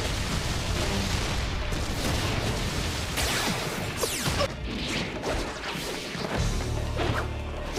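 Anime battle sound effects: a dense run of crashes, impacts and whooshes over dramatic background music.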